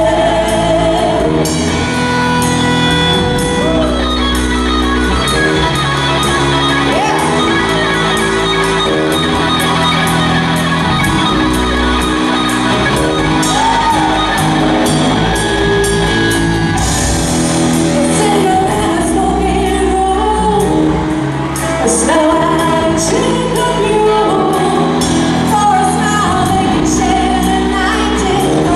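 Live rock band playing: a female lead vocal over a drum kit with a steady beat, electric guitar and bass guitar, echoing in a large hall.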